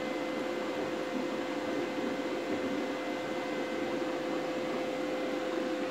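Steady hiss of a small torch flame burning hydrogen gas from a running multi-plate electrolysis cell, over a steady electrical hum.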